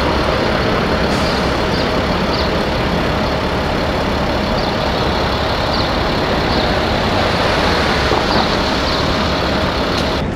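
Manitex boom truck's engine running steadily to work the crane, a loud even rumble with a thin steady whine over it that stops just before the end.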